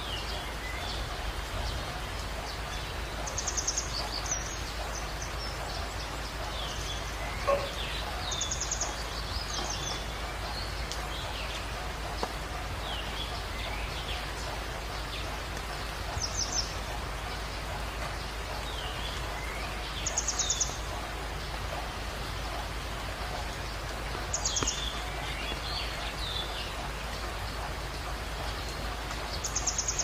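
Steady hiss of rain and running stream water with songbirds: a short high trill repeats about every four to five seconds among scattered chirps. One sharp click stands out about seven and a half seconds in.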